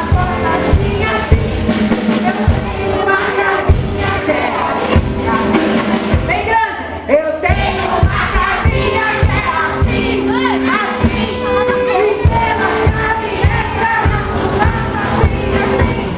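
Music with a steady beat and singing voices.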